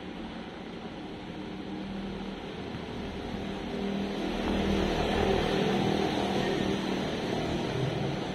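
Cat rubbing against stiff brush bristles: a steady rustling with a low rumble underneath, louder from about four seconds in.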